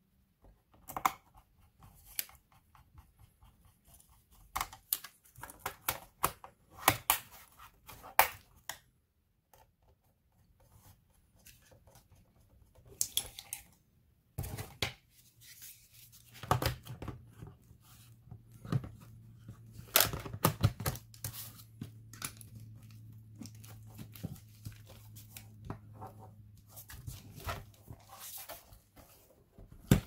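Clicks, scrapes and knocks of a Sony VAIO laptop's plastic case being put back together by hand: a screwdriver working the bottom-cover screws, then the battery pack being slotted into its bay and the laptop being handled and turned over.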